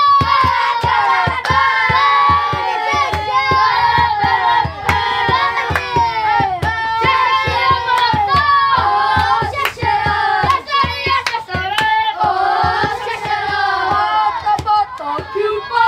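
A group of children singing an Aboriginal cheer song together in the dugout, clapping along in a steady rhythm of about two to three claps a second.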